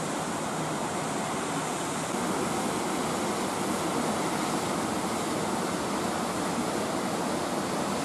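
Waterfall plunging down a rock face into a gorge: a steady rush of falling water.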